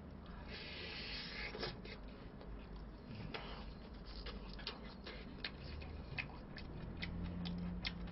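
Faint chewing of pizza: scattered soft clicks and smacks from a mouth working on a big bite.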